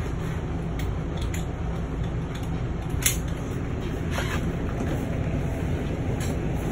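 Steady low machine hum, with a couple of sharp clicks and knocks about three and four seconds in as a motorhome sofa seat is handled and lifted.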